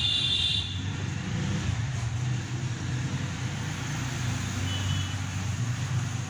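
Steady low rumble of a motor vehicle engine running nearby, like road traffic, with a brief high squeak near the start and another about five seconds in.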